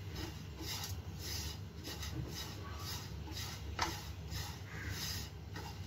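Dry rolled oats being stirred and scraped around a nonstick pan with a silicone spatula while they roast: soft, repeated rustling scrapes, about two strokes a second.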